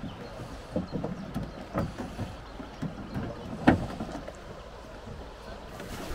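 Irregular knocks and thumps on a traditional wooden Dunajec raft as it sets off, over a steady low rush. A sharp knock a little past halfway is the loudest.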